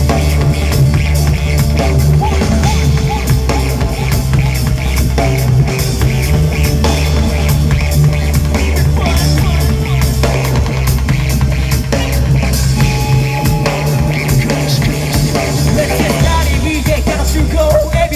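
Live band playing loud amplified music through a club PA: a drum kit keeping a steady beat over a heavy bass line, with keyboards.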